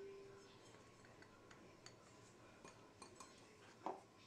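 Faint clinks and taps of glass kitchenware as flour is tipped into a glass mixing bowl: a ringing glass tone fades out at the start, a few light ticks follow, and a duller knock comes near the end.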